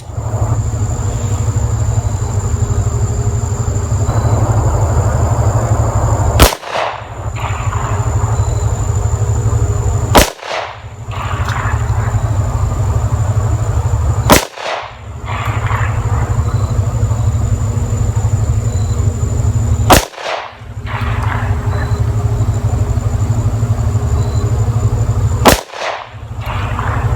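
Five single shots from a Smith & Wesson M&P pistol in .40 S&W, fired slowly several seconds apart for a five-shot group, over a steady background rumble.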